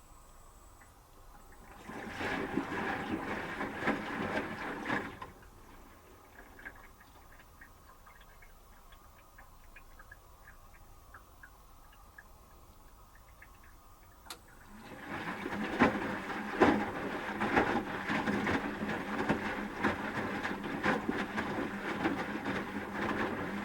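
Asko W6098X front-loading washing machine turning its drum, the wet load and water sloshing inside, for about three seconds. It pauses with faint clicks, then starts turning again about fifteen seconds in, with occasional knocks as the laundry drops.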